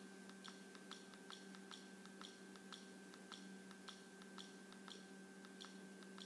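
Faint clicks of a Fire TV remote's direction button pressed over and over, about two a second, over a low steady electrical hum.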